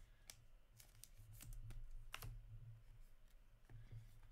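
Faint, irregular light clicks and taps of hands handling a trading card in a clear plastic holder, about half a dozen in all, over a low steady hum.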